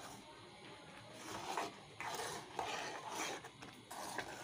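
Steel spoon stirring and scraping thick, nearly set apple jam around a kadhai, in a run of uneven strokes.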